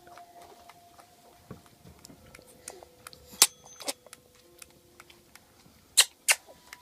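Baby making kissing noises: sharp lip smacks, one about halfway through and two in quick succession near the end.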